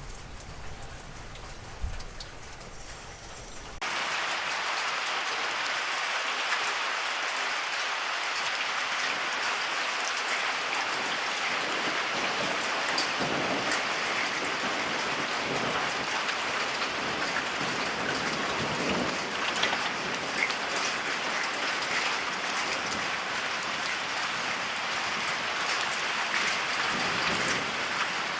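Steady rain falling during a weak thunderstorm. About four seconds in, the rain sound jumps abruptly louder and denser. A few low rumbles of distant thunder come through it.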